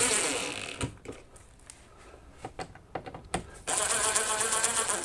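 DeWalt cordless drill driving screws into a ceiling: a short run that winds down over about a second, a few light clicks, then a steady run starting near the end. On the second run the screw spins without biting into anything.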